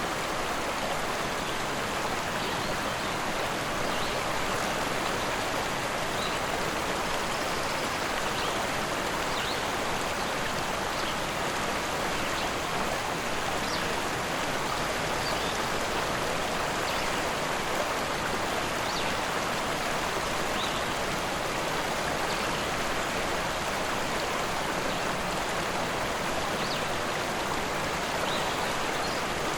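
Rushing river water flowing steadily, an even, unbroken rush.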